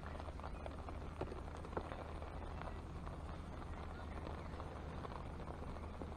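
Light rain pattering: a steady hiss with many small drops tapping, a couple of them a little louder about a second and nearly two seconds in.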